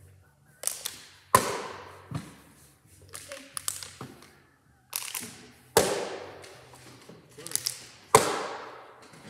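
A partly filled plastic water bottle being flipped and landing on a wooden table over and over: a series of sharp thuds and clatters. The loudest come about a second in, near six seconds and just after eight seconds.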